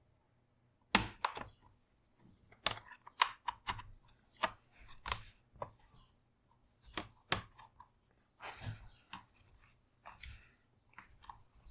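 A prying tool levering at the edge of a laptop's bottom cover: irregular sharp clicks and snaps as the cover's retaining clips come away, with a couple of short scrapes in the latter part.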